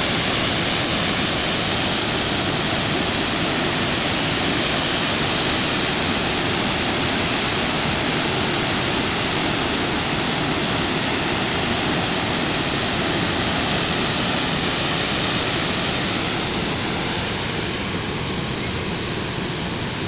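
Steady rushing of running water, an even roar with no pitch or rhythm that eases off slightly near the end.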